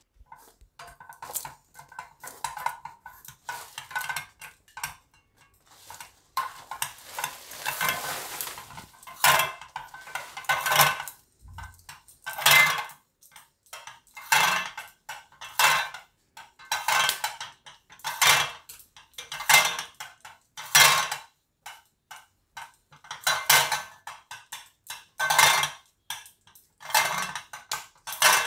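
Rolling pin rolling wheat-flour papad dough thin on an oiled stone rolling board, in repeated back-and-forth scraping strokes that come about once a second in the second half.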